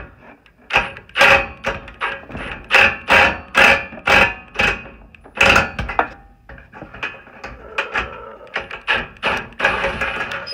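Sharp metallic knocks and clanks, each with a brief ringing tone from the sheet-metal housing of an Atwood RV furnace, as a long 1/4-inch nut driver is worked on the high limit switch bracket screw. The knocks come about two a second and get lighter in the second half.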